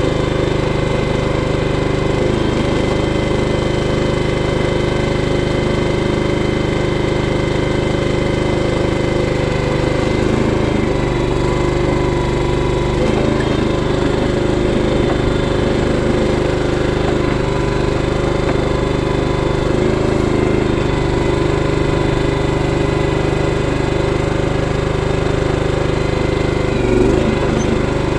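Harbor Freight trencher running steadily at constant engine speed while digging a trench in the dirt.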